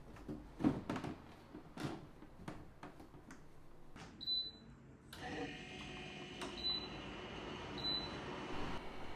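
Electric dehumidifier being handled and switched on: a few light knocks and clicks, a short electronic beep, then its fan starts up and runs with a steady hum, with two more short beeps as its buttons are pressed.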